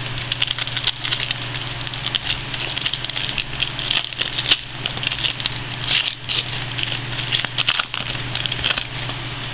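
Trading cards and their plastic packaging being handled: crackling rustle with many small clicks and ticks, over a steady low hum.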